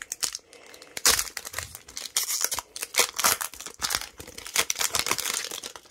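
Foil wrapper of a Pokémon trading card booster pack crinkling and rustling as it is handled and the cards are drawn out, in a run of sharp crackles from about a second in.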